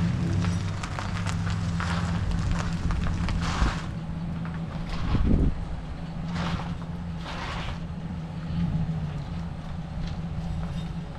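A vehicle engine idling steadily, with scuffing and rustling noises over it and a dull thump about five seconds in.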